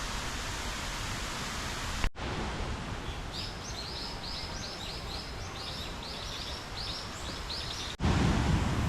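River water rushing steadily. After a cut about two seconds in, the water is softer and a rapid run of short, high chirps repeats for about four seconds; after another cut near the end, the rushing water is louder and deeper.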